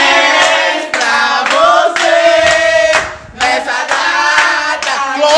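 A group of voices singing together, with hand claps.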